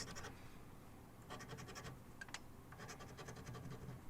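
Faint scratching of a scratch-off lottery ticket's coating, in several short bouts of rapid strokes with brief pauses between them.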